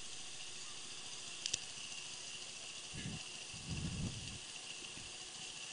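A single faint, sharp crack of a cricket bat striking a tennis ball about a second and a half in, over a steady high hiss. Faint low sounds come and go near the middle.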